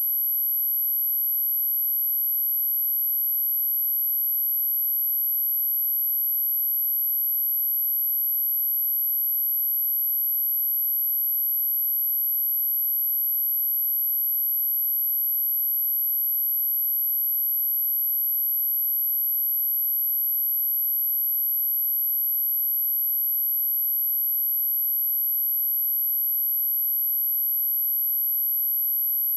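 A pure 11764 Hz sine tone, very high-pitched and held steady without a break: a speaker test and speaker-cleaning tone.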